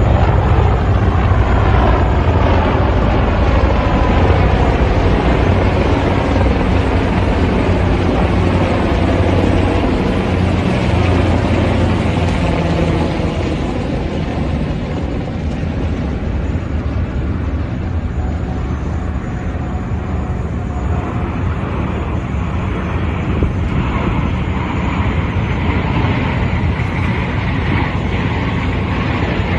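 A formation of military helicopters and jets flying past overhead makes a loud, steady low drone. Engine whines fall in pitch as the aircraft go by. The low drone eases a little about halfway through, leaving a steadier rumble.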